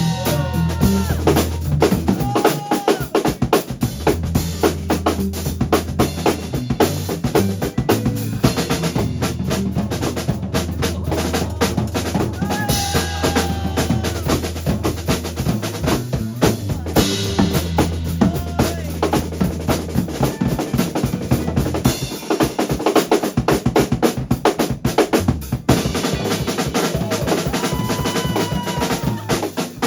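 Band music driven by a drum kit, with bass drum and snare hits in a steady beat over a held bass line, and a few bending melody notes above.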